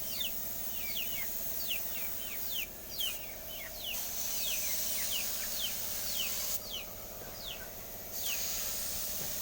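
A bird calling over and over with short falling chirps, about two a second, over a steady hiss.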